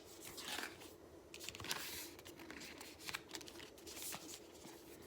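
Faint rustling and light clicks of packaging being handled, over a steady low room hum.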